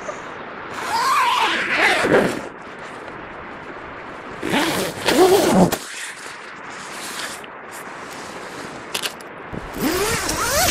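Zip on the door of a Tarptent Scarp tent being pulled open in three separate runs: about a second in, around five seconds in, and near the end. Each run slides in pitch.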